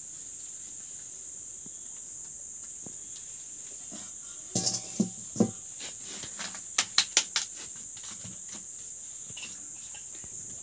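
Crickets chirring steadily and high-pitched in the background. About halfway through come a few metallic knocks and clatter, as an aluminium kadai is set onto a wood-fired stove, followed by a quick run of sharp clicks.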